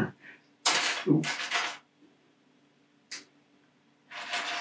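Small loose Lego plastic pieces being sifted and handled on a tabletop: a burst of rattling plastic, a single short click about three seconds in, then more rattling near the end.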